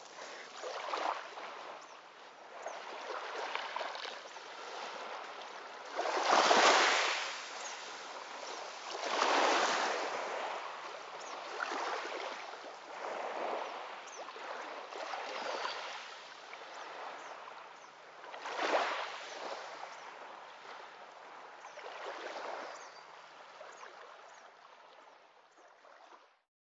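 Small waves washing onto a pebble shoreline, swelling louder every few seconds, fading out at the end.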